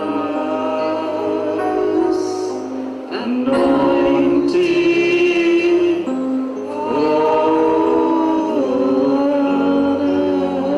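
Christian worship music with a choir of voices singing long held notes.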